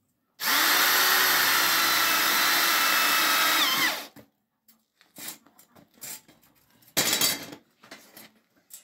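Corded electric drill working into a thin steel strip laid over a steel rectangular tube. It spins up, runs steadily for about three and a half seconds, and its pitch sags just before it stops. A few brief, quieter bursts follow, the strongest about seven seconds in.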